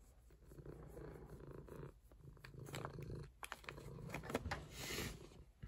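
Domestic cat purring while being scratched under the chin and cheek, the low purr going in long stretches with brief breaks about two seconds in and again a second later. There are a few light clicks in the middle.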